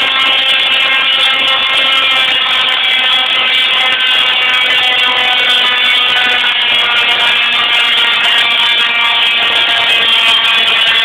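Musical Tesla coil playing notes with its arcs: a loud, harsh buzzer-like tone that shifts pitch now and then.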